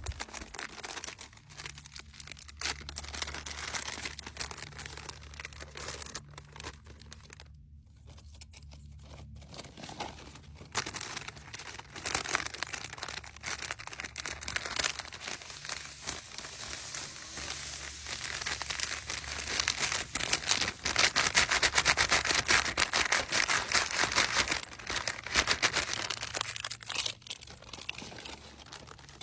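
Crinkling and rustling of MRE packaging as a paper drink-powder pouch and plastic bags are handled and unfolded, a dense run of fast crackles that is loudest past the middle.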